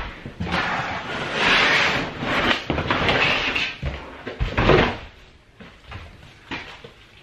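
A rolled-up sheet of old wood-pattern floor covering rustling and scraping as it is handled and carried through a doorway, with a few knocks against the frame, the loudest about four and a half seconds in. It goes quieter for the last two seconds.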